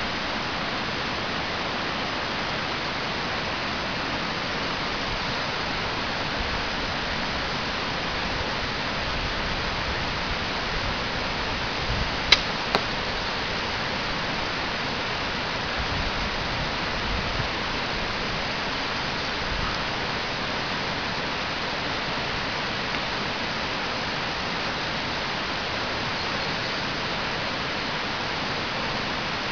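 Steady rushing background noise, broken by two sharp clicks about half a second apart a little before the middle.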